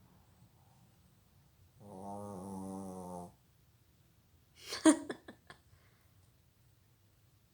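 Snoring: one long, evenly pitched snore about two seconds in, lasting about a second and a half. About five seconds in comes a short sharp burst followed by a few clicks, the loudest moment.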